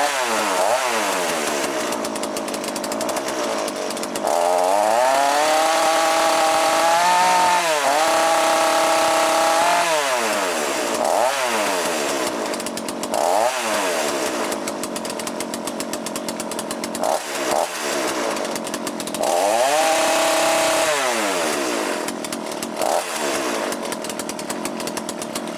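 Small two-stroke chainsaw engine with a Walbro carburettor running and being revved up and down repeatedly, some revs held high for a second or two, then cutting off abruptly at the end. The revving is the high-speed mixture screw being adjusted, the mixture richened from a very lean setting.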